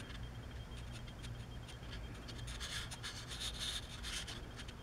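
Faint handling noise: rubbing and scratching that picks up about two and a half seconds in, over a low steady hum.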